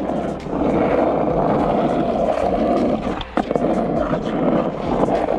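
Skateboard wheels rolling over rough asphalt, a steady rumble, with a sharp click twice.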